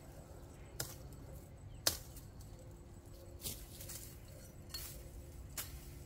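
Machete chopping at cassava stalks: about five sharp strokes roughly a second apart, the one about two seconds in the loudest.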